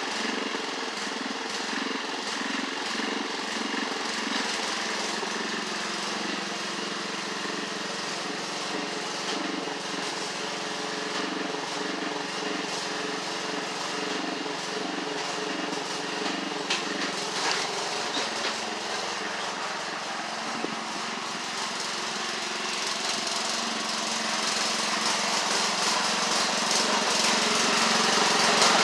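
Craftsman LT1138 lawn tractor engine running steadily under load, growing louder near the end.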